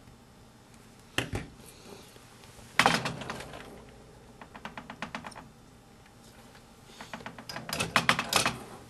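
Sharp clicks and light taps of small tools and parts handled on an electronics workbench during soldering: a loud click about a second in, another near three seconds, a run of quick ticks around five seconds, and a flurry of clicks near the end.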